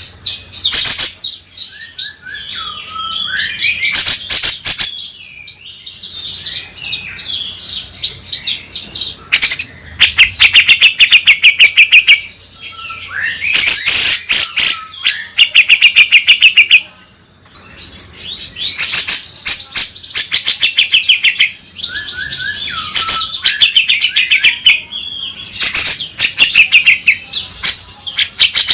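Cucak jenggot (brown-cheeked bulbul) singing loudly in repeated bouts of chirps and whistled notes, several times breaking into fast rattling runs of sharp, evenly repeated notes.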